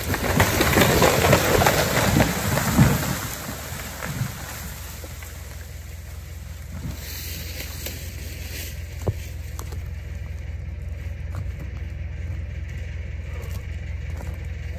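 A felled hardwood tree crashes down through the branches of neighbouring trees, a loud cracking and swishing rush lasting about three seconds that ends in a heavy thump as the trunk hits the ground. A low steady engine hum runs on underneath.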